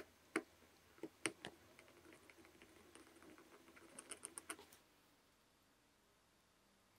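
Wooden stick picking and scraping at dirt on a leather trainer insole: a few sharp clicks and taps in the first second and a half, light scratching, then a quick run of about five ticks around four seconds in.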